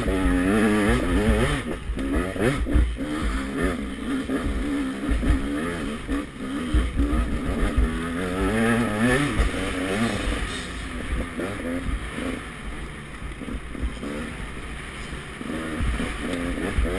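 KTM 200 XC-W's single-cylinder two-stroke dirt bike engine under hard riding, revving up and down over and over as the throttle is worked. It eases off past the middle, then picks up again near the end.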